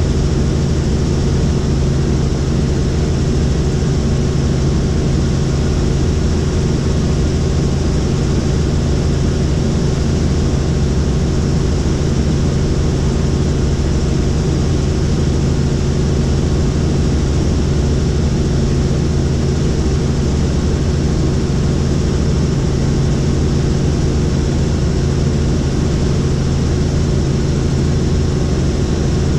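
Helicopter rotor and engine running in steady flight: a loud, unchanging low drone with several steady hum tones and a hiss above them.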